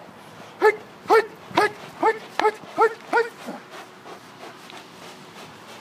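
Belgian Malinois barking sharply at the helper during aggression work: seven quick barks, about two a second, which then stop.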